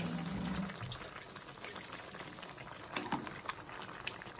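Creamy chicken macaroni soup bubbling and crackling at a simmer in a pan, stirred with a ladle that clinks against the pan a few times about three seconds in. A brief low hum at the very start.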